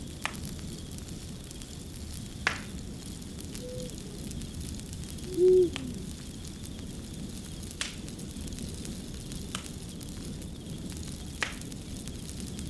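Crackling fire: a steady low rustle of burning with sharp pops every second or two. About halfway through, a single loud short owl hoot falls off in pitch at its end, and a fainter short call comes just before it.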